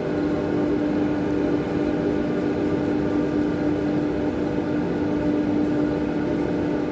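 Steady machine hum of aquarium equipment, with a held low tone and a few fainter steady tones above it over a constant rushing haze.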